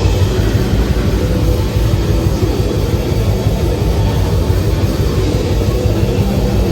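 Death metal band playing live, an instrumental passage: heavily distorted guitars and bass over very fast, dense drumming.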